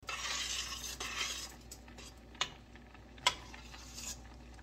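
Metal spoon stirring thick okra gumbo in a stainless steel stockpot, scraping and sloshing at first, then two sharp clinks of the spoon against the pot about a second apart.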